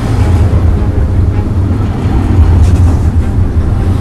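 Steady low rumble of a vehicle running, from an added street-ambience soundtrack.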